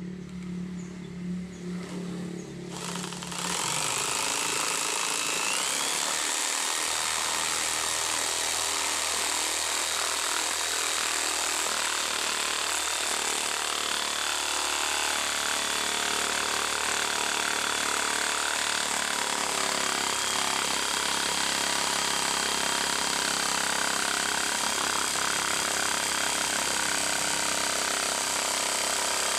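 Power tool driving a jigsaw adaptor, switched on about three seconds in and then running steadily and loudly, its whine rising in pitch shortly after starting and then holding.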